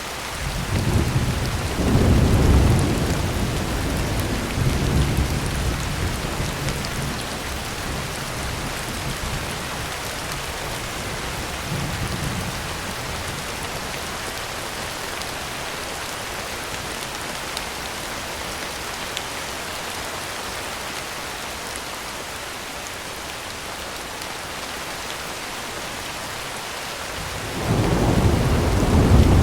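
Heavy rain pattering steadily on a tin roof, with rolling thunder: a deep rumble swells about a second in and rolls on for several seconds, then a second loud rumble begins near the end.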